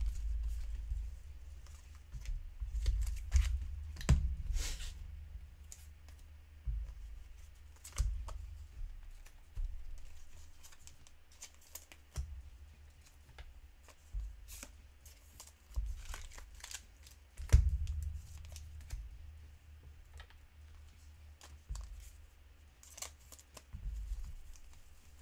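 Pokémon booster pack foil wrappers crinkling and tearing in short, irregular bursts as packs are handled and opened, with dull bumps as packs and cards are set down on the desk.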